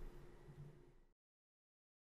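Near silence: faint room tone that cuts out to complete silence about a second in.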